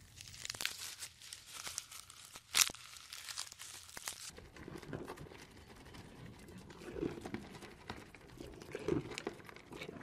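Faint crackling and rustling with a few sharp clicks, the loudest about two and a half seconds in. From about four seconds in, a grazing goat tears and chews grass in soft crunching bites.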